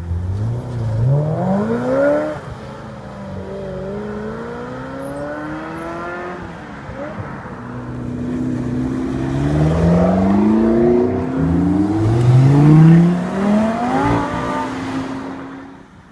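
Supercar engines accelerating hard away, pitch climbing and dropping back with each gear change; a first car pulls away about a second in, and from about 8 s a run of quick up-shifts builds to the loudest point and then fades sharply near the end.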